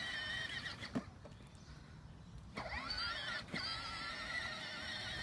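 Power Wheels Dune Racer's electric drive motors and gearboxes whining as the ride-on toy drives across grass at low speed, the pitch wavering with the ground. After a click about a second in, the whine stops, then about two and a half seconds in it starts again with a rising pitch as the motors spin up.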